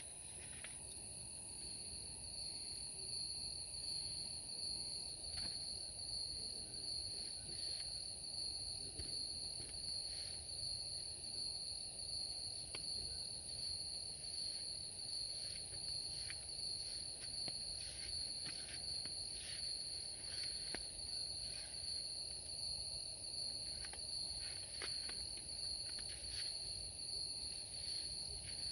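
Steady chorus of night insects, such as crickets, trilling continuously in two high-pitched bands, the lower one joining about a second in, with a few faint ticks.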